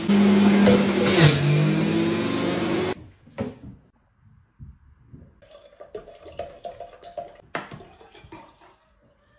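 Electric centrifugal juicer running as lemon pieces are pushed down its chute, its motor pitch dipping under the load, then switched off about three seconds in. After that, quieter handling clicks and water being poured into a glass jar.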